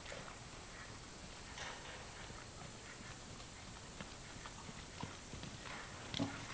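Hoofbeats of a bay mare trotting on arena sand: soft, repeated thuds, with one sharper knock about six seconds in.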